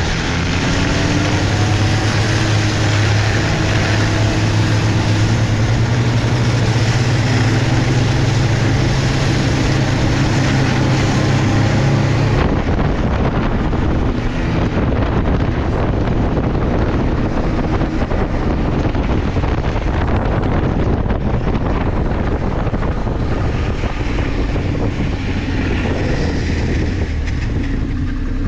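Engine of a moving vehicle running at speed under heavy wind noise on the microphone. Its pitch climbs slowly for about twelve seconds, then the sound switches abruptly to a rougher, noisier engine-and-wind rush.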